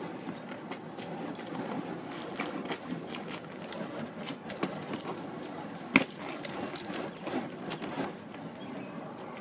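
Flaming nunchaku being swung and spun: a steady rushing noise with scattered light clicks, and one sharp clack about six seconds in.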